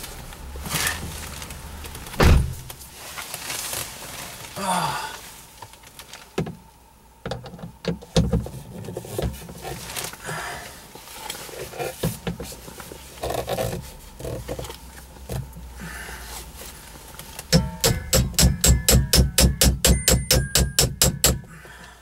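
A hand tool and plastic trim knock and scrape against a car's overhead console. Near the end comes a fast, even run of loud metallic clicks, about five a second for some four seconds, as a screw is worked with the tool.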